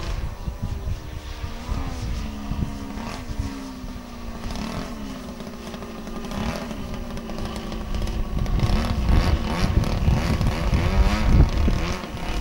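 Engine of a radio-controlled aerobatic model airplane in flight, its pitch falling and rising again and again as it manoeuvres overhead. Wind buffets the microphone, growing louder in the second half.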